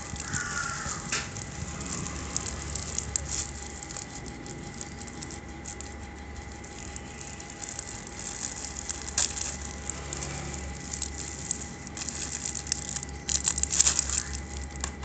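Plastic packaging crinkling and crackling as it is handled, with a louder burst of crackling near the end.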